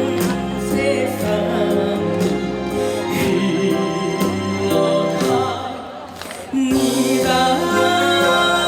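Live performance of a Korean trot song over an instrumental backing track, the band's sustained chords and beat carrying the music. About two-thirds of the way through, the music briefly drops off, then comes back suddenly louder and fuller.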